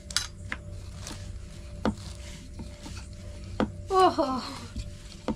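Scattered light clicks and taps of kitchen utensils, a spoon against steel bowls and a rolling pin on its board, as momos are filled and rolled; about five sharp taps spread out, with a brief voice about four seconds in.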